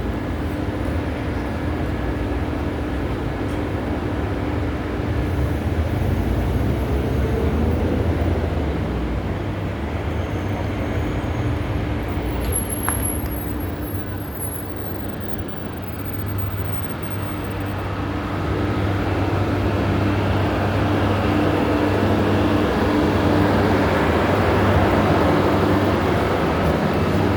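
City street traffic: road vehicles running and passing in a steady wash of engine and tyre noise, with a low engine hum through it. It dips briefly about halfway through, then grows louder in the second half.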